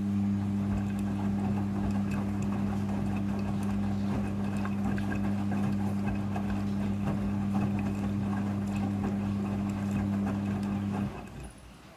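Midea front-loading washing machine running with a steady electric hum and a rattly, watery churn above it, which stops suddenly near the end.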